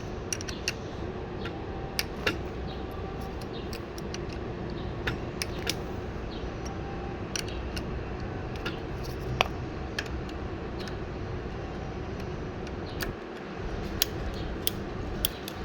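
Scattered metallic clicks and taps of bicycle parts being handled as the stem is worked loose and pulled off the fork's steerer tube, over a steady background hum.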